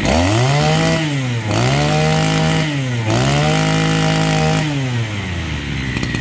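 Maruyama 26cc brush cutter engine revved three times on the throttle trigger: each time it climbs from idle, holds high for about a second and drops back, then it settles to idle about five seconds in.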